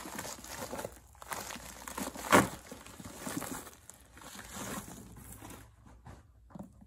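Plastic shipping wrap crinkling and crackling as a boxed iPad Pro is pulled out of it, with one sharp, loud crackle about two seconds in. It dies down near the end.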